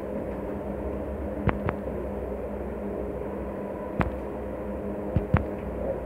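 Steady low hum, with a few light clicks: a pair about one and a half seconds in, one near four seconds and two more just after five.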